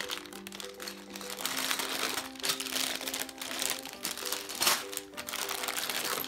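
Clear plastic bags full of Mega Bloks pieces crinkling and rustling as they are handled, over background music with held notes.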